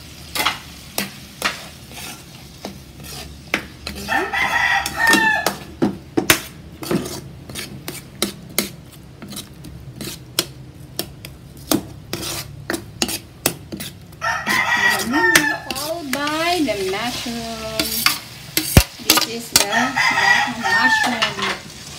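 A metal ladle scraping and clinking against an aluminium wok as garlic and onion sizzle in oil. A rooster crows three times in the background, about four seconds in, at about fourteen seconds and again near the end.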